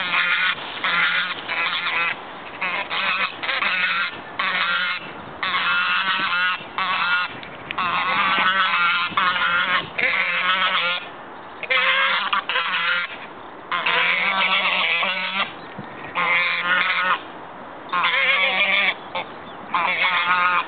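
Two white domestic geese honking loudly and almost without pause as they squabble, the calls coming in runs broken by short gaps.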